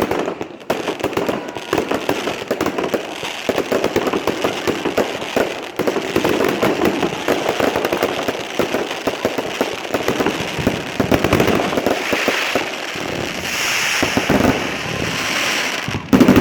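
Fireworks display: a dense, unbroken run of rapid bangs and pops from bursting shells, with crackling in the second half and a louder bang near the end.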